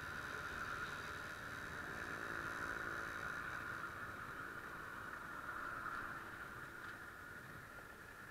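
Kawasaki ER-6f motorcycle's parallel-twin engine running at low speed on the move, under a steady rushing noise; the engine note is clearest a few seconds in and eases slightly in the second half.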